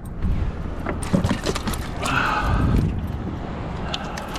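Wind rumbling on the microphone, with scattered clicks and knocks and a brief rustling scrape about two seconds in, from gear and a caught fluke being handled on a fishing kayak.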